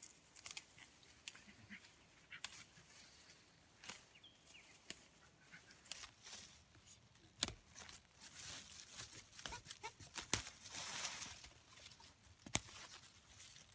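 A knife cutting through fern stems as undergrowth is cleared by hand: scattered sharp snaps, the loudest about halfway through, among faint rustling of fronds.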